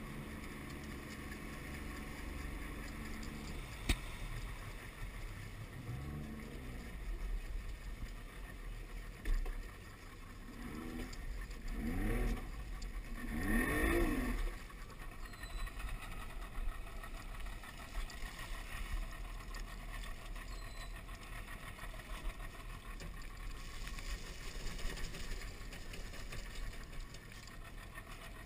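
Yamaha outboard motor pushing a skiff at low throttle: steady at first, then briefly revving up and dropping back about twelve to fourteen seconds in.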